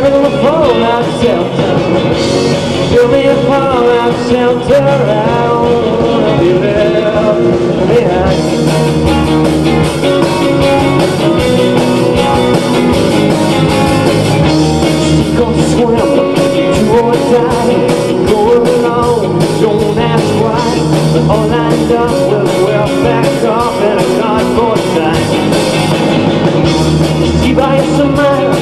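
Live rock band playing: electric guitars, bass guitar and drums. A fast cymbal pattern comes in about eight seconds in.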